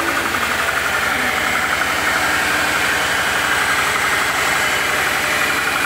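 Subaru EJ25 flat-four engine idling steadily on its first run after being swapped into a WRX, while its cooling system is bled of air.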